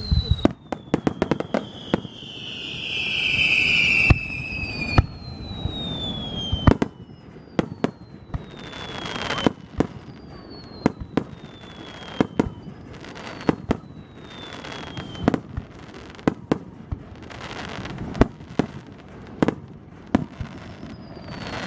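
Aerial fireworks display: a steady string of sharp bangs from bursting shells, with several whistles falling in pitch. A loud hissing swell comes about two to four seconds in, and bursts of crackle follow through the rest.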